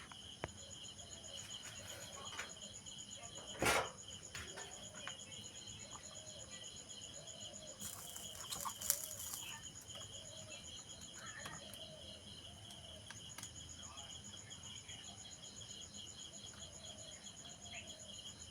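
Steady, rhythmic chirping of crickets, with a few sharp clicks and one louder knock about four seconds in.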